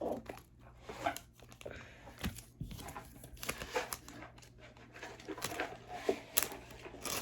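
Pokémon trading cards being handled: a run of brief rustles and light taps and clicks as the cards are moved and set down.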